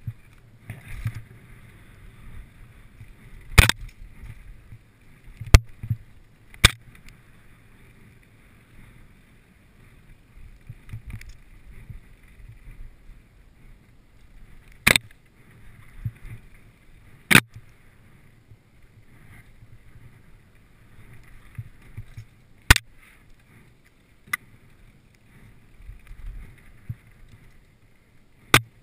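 Mountain bike rolling fast down a dirt singletrack: a steady low rumble of tyres and wind on the microphone, broken about eight times by sharp clacks as the bike jolts over bumps.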